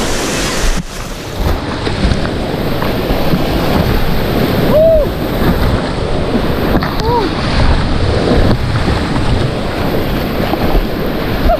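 Rushing water of a river rapid, with wind buffeting the microphone. A couple of brief high-pitched calls sound about five and seven seconds in.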